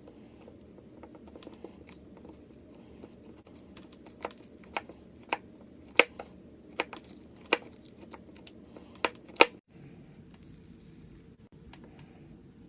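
Slime being squeezed and poked with the fingers, making a run of sharp clicking pops, about ten of them at irregular intervals, the loudest near the end, with fainter ticks before them.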